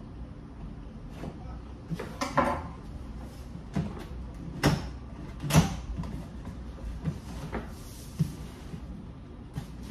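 Cardboard box being handled and opened by hand: a string of separate knocks, taps and scrapes of hands and cardboard, the sharpest between about two and six seconds in.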